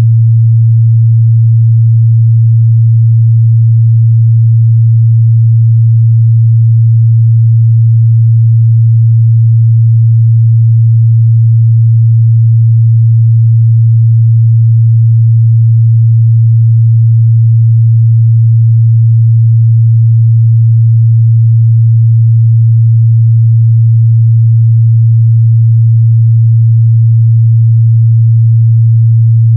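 A steady 114 Hz sine-wave test tone: one low, unbroken hum in the mid-bass, loud and constant in pitch and level.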